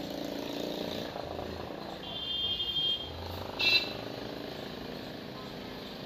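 Two short high-pitched beeping tones, one lasting about a second starting two seconds in and a louder, briefer one just after the middle, over a steady background hum.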